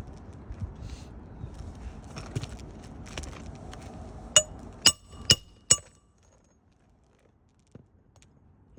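Rustling handling noise, then four sharp metal-on-metal strikes with a short ringing tone, about two a second, during roofing work with a crowbar and nailing tool on shingles.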